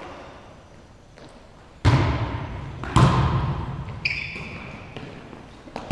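A volleyball struck twice, about a second apart, each sharp hit ringing on in the echo of the large gymnasium, with a lighter hit near the end. A brief high squeak comes about four seconds in.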